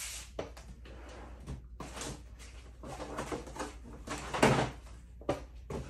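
Rummaging and handling sounds as a small cutting mat is fetched from among craft supplies: scattered rustles and knocks, with a louder short knock about four and a half seconds in.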